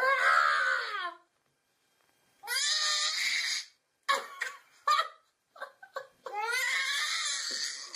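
A young child's high-pitched, wordless crying: several drawn-out cries with bending pitch, separated by short pauses.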